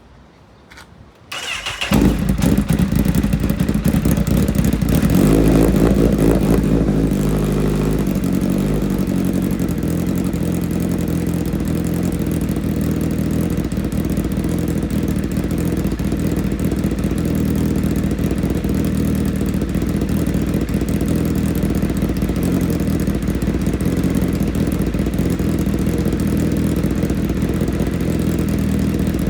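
Motorcycle engine starting about a second and a half in, running a little faster and louder for several seconds, then settling into a steady idle.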